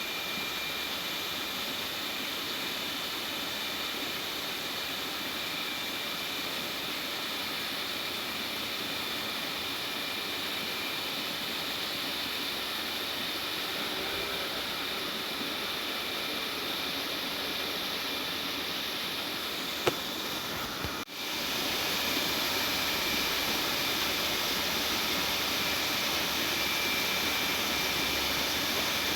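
Steady rushing noise with a faint high whine through it, broken by one sharp click about twenty seconds in and a brief dropout just after, then running on slightly louder.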